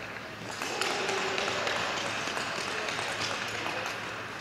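Speed-skating rink ambience: a steady haze of distant voices and hall noise with scattered small clicks and taps.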